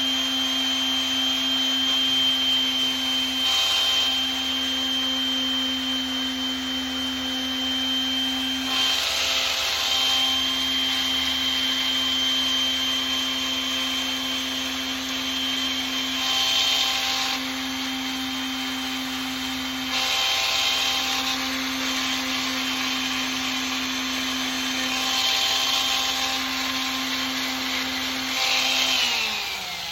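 Electric sander running steadily with 320-grit sandpaper on a brass putter head, with louder, rougher surges every few seconds. Just before the end the motor switches off and winds down, falling in pitch.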